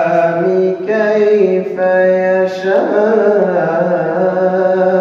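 A man's voice chanting Quran recitation (tilawa) over a microphone. He draws out long held notes with slow melodic slides in pitch, in the ornamented style of tajwid recitation.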